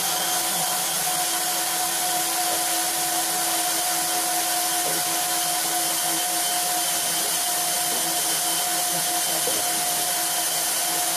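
Cordless drill running steadily at one constant speed, turning the drive shaft of a 1968 Toro Snow Hound snowblower to work its rusted, seized drive chains free after a long soak in penetrating fluid.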